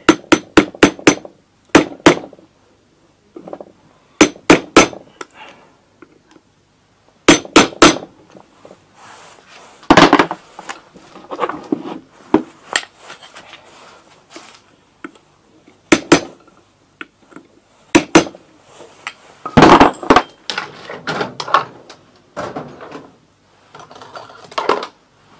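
Hammer striking a punch or screwdriver set in the clutch hub of a two-stroke moped engine: a quick run of sharp metal taps at first, then single or paired blows every few seconds. Lighter clinks of metal tools and parts sound between the blows.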